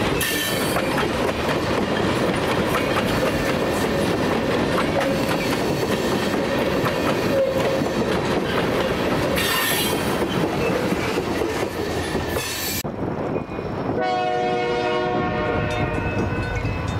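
Freight train tank cars rolling past close by: a steady rumble and clatter of wheels over the rail joints with some wheel squeal, cutting off about thirteen seconds in. About a second later a locomotive horn sounds a held chord of several steady tones.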